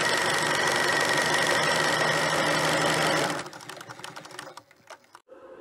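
Film projector clatter as a sound effect, running steadily and then cutting out about three and a half seconds in, with a few ticks trailing off as it winds down.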